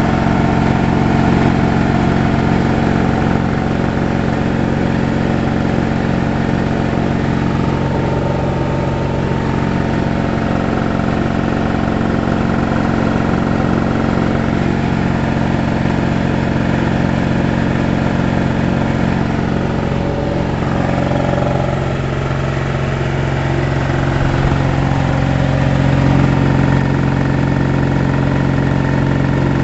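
Porter Cable 220-volt stationary air compressor running steadily: its electric motor drives the belt-driven piston pump as it builds pressure in the vertical tank on a test run after being hardwired.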